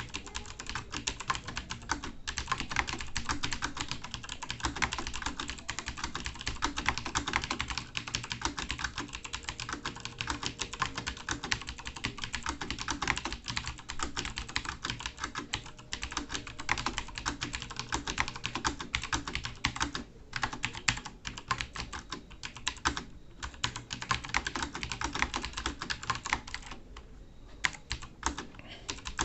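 Fast, continuous typing on a computer keyboard: a dense stream of key clicks with a few brief pauses, the longest of about a second near the end.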